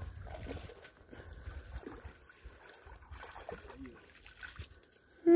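Faint splashing as a hooked fish thrashes in the shallows while it is reeled in to the bank, with scattered small clicks and rustles.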